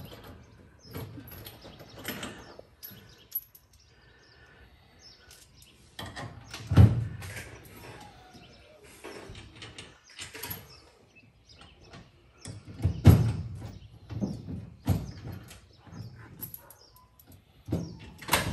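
Irregular clunks, taps and rattles of hands, bolts and tools working against the car's metal floor and transmission tunnel, with two louder thumps about seven and thirteen seconds in.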